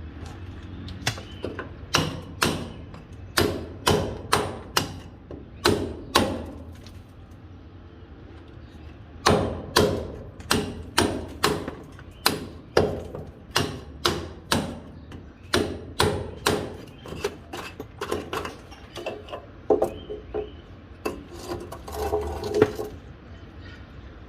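Hand hammer blows on a chisel, breaking a masonry wall: sharp strikes at about two a second, stopping for a few seconds about a quarter of the way in and then resuming.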